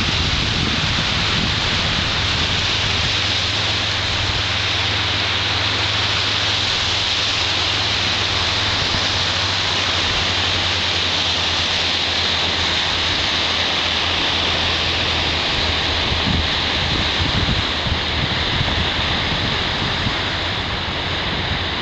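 Surf breaking and washing up a sandy beach: a steady hiss of water with a low rumble underneath.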